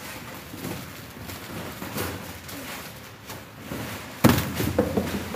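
Stock being handled: plastic packets rustling, then a sudden loud thump about four seconds in, followed by a second of louder rustling and knocking as cardboard boxes of goods are moved.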